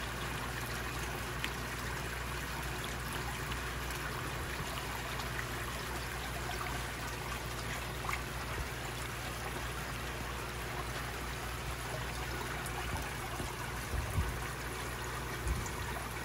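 Steady trickle of running water in a pond, with a couple of brief low bumps near the end.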